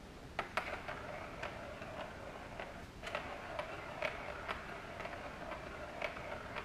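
Plastic ball rolling around the inside of a Catit Circuit track toy, a steady rattling rumble, with irregular sharp clicks and taps as a kitten's paws hit the plastic track.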